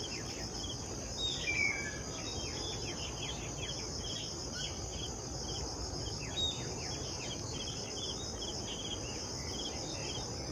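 Natural ambience: insects trill steadily at a high pitch, with many short falling chirps under it. A couple of louder bird calls stand out about one and a half seconds in and again around six seconds.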